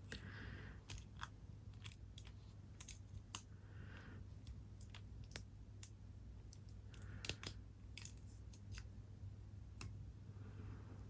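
Faint, irregular small metallic clicks and scrapes of a lock pick and tension wrench working the pins inside a Yale brass padlock.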